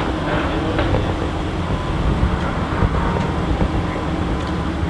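Several Jaguar F-Type sports cars idling together in a queue: a steady low engine rumble, with no revving.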